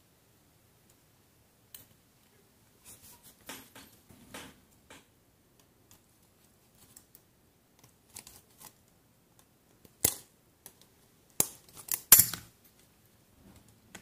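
Small clicks and scrapes of an old alarm clock's brass movement and parts being handled and taken apart, with a cluster of sharper, louder clicks near the end.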